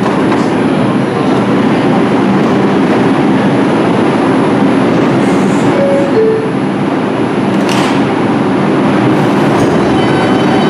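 NYC Subway R142 train running on the rails with a loud, steady rumble. Near the end, a whine at several pitches comes in over the rumble.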